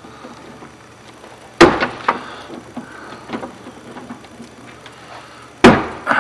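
Two sharp clunks from a pickup's door lock and latch mechanism being worked with the door panel off, about four seconds apart, with small clicks and rattles between them. The mechanism is sticky and works poorly despite repeated greasing.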